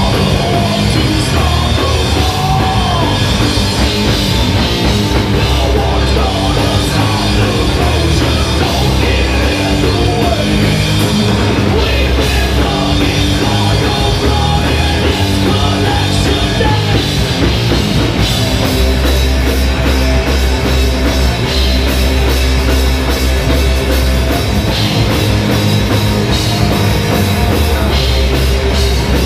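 A live heavy rock band playing loudly, with electric guitar, bass guitar and drum kit, heard from among the crowd at the front of the stage.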